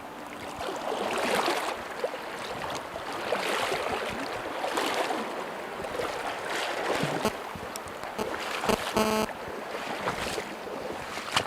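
Fast river water rushing, with splashing that swells about every one to two seconds, a few sharp clicks, and a short buzz about nine seconds in.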